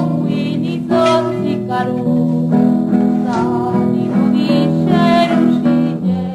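Acoustic guitar strummed, a new chord about every second, playing a Zapotec song; it drops in level near the end.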